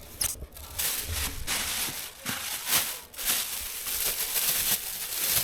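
Strong winter wind gusting: a rushing hiss that swells and eases several times.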